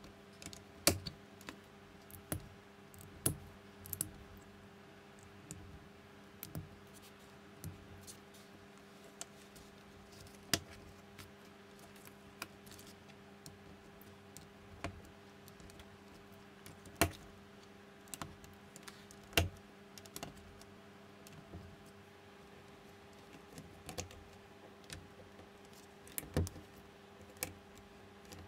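Plastic LEGO-compatible bricks being handled and pressed together by hand: irregular sharp clicks, with a handful of louder snaps spread through, over a faint steady hum.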